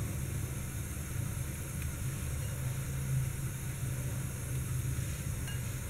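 A steady low hum with no breaks or changes.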